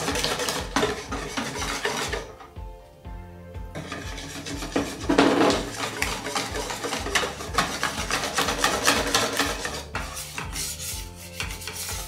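Wire whisk beating a thin chickpea-flour and water batter in a bowl, with rapid scraping strokes against the bowl. The whisking pauses briefly about two seconds in.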